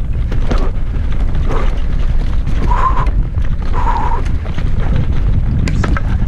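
Mountain bike rattling and clattering down a rough dirt-and-rock descent, over a heavy low rumble of wind buffeting the camera's microphone. A few short high squeaks come through, and a cluster of sharp knocks comes near the end.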